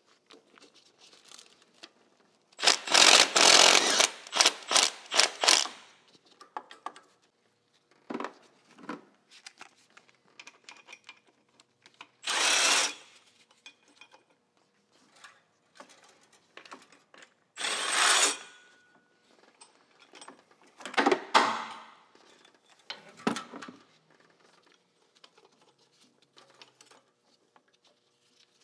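Cordless power tool, likely a power ratchet, running in short bursts as it backs out the 14 mm bolts holding the AC compressor bracket to the engine. A run of quick pulses comes about three seconds in, then single bursts under a second long every few seconds, with faint tool-handling clatter between them.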